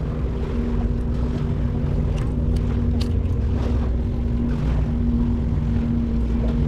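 Boat engine running steadily, a low hum with a steady pitch, with a few light clicks near the middle.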